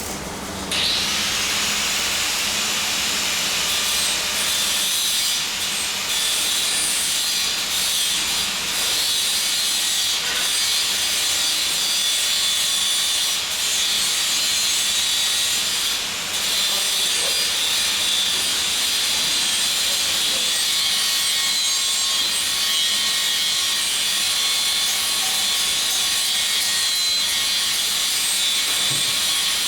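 Electric arc welding: the arc strikes about a second in, then burns with a steady frying hiss and crackle, dipping briefly around the middle.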